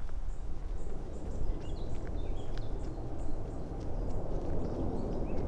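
Footsteps walking along a woodland path, with small birds chirping in short, high calls over a steady low rumble.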